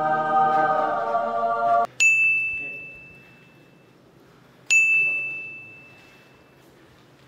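Edited-in sound effects: a held choir-like chord that cuts off abruptly about two seconds in, then two bright bell dings a few seconds apart, each ringing out for about two seconds.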